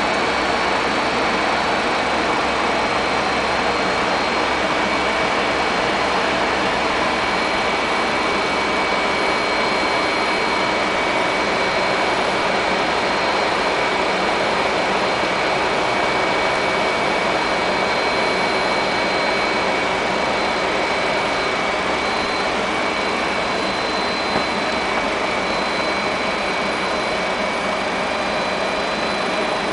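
Steady flight-deck noise of a Fokker 100 jet airliner in flight: a constant rush of air and engine noise with a thin, steady high-pitched whine over it.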